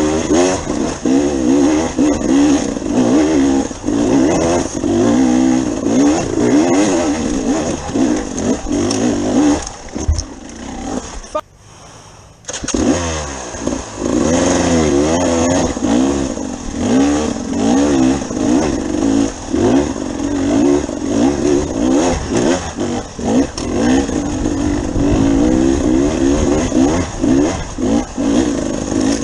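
Off-road motorcycle engine revving up and down as the bike is ridden, the engine note rising and falling constantly. The sound drops out briefly for about a second around the middle, then picks up again.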